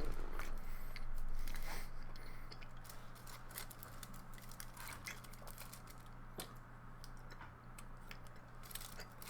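A person chewing a piece of dark chocolate, with scattered small clicks and mouth noises, over a steady low hum.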